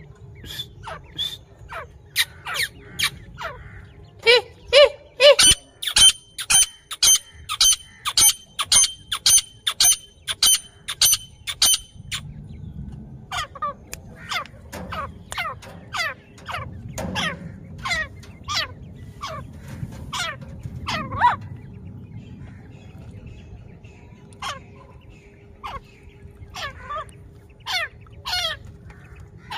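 Grey francolin hen calling: a long series of short, sharp notes, each sliding down in pitch, about two a second. The notes are loudest and most regular in the first third, then come more loosely.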